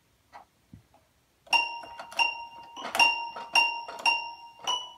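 Toy piano keys pawed by a cat: the same high note plinked over and over, about two a second, starting about a second and a half in.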